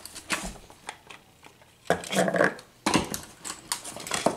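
Plastic speed-stacking cups knocking and clattering against each other and the wooden shelf as a stacked set is tugged at and handled: a string of sharp plastic clicks and knocks.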